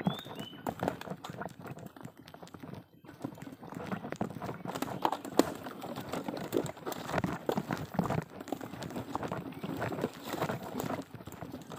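Loaded wheelbarrow being pushed over rough ground strewn with twigs and leaves: its frame and load rattle and knock unevenly as it rolls.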